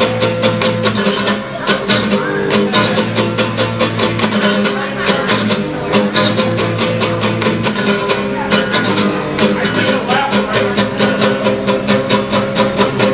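Acoustic guitar strummed in a fast, steady rhythm of chords.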